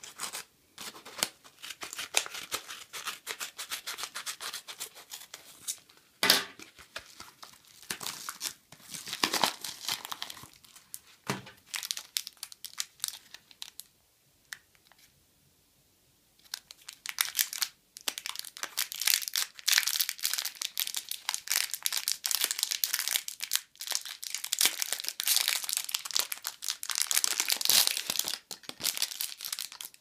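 A paper mailing envelope being snipped open with scissors and torn, with sharp snips and crackling. After a short pause about halfway through, a thin clear plastic bag crinkles steadily as it is handled and pulled off a small metal keychain.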